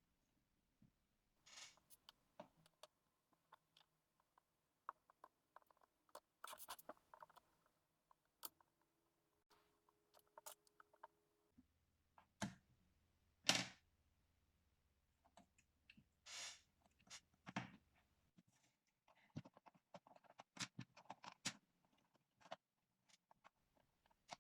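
Faint, irregular clicks and short scrapes of hands and small tools working on a laptop's plastic case.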